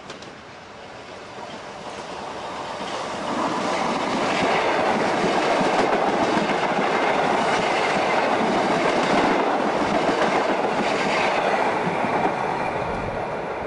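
Hitachi stainless-steel electric suburban train approaching and passing close by at speed, its wheels clicking over the rail joints. The noise builds over the first few seconds, stays loud while the carriages go by, and eases a little near the end as the train draws away.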